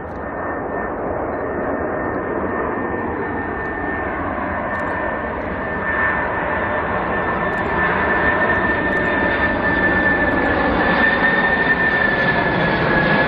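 Simulated Boeing 747 jet engines running: a steady high whine over a dense rumble, growing gradually louder.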